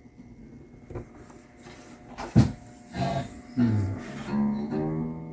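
Mountain dulcimer strings plucked and strummed a few times, the notes ringing on, after a couple of knocks from the instrument being handled.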